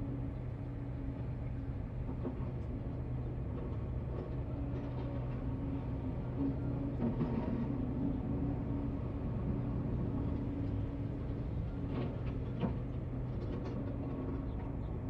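An engine running steadily with an even hum, with a few light knocks near the end.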